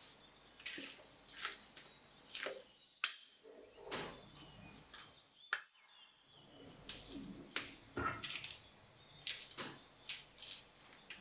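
Kitchen prep sounds: utensils tapping, clinking and scraping against bowls and dishes in an irregular series of short, sharp sounds.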